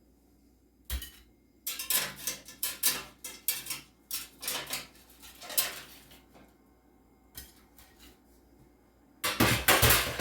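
Kitchenware being handled: a run of separate sharp knocks and clinks of dishes and pans, then a quick dense clatter near the end.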